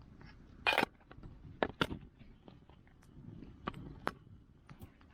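Scattered clicks and knocks with a short scrape about a second in, the sound of small objects being handled.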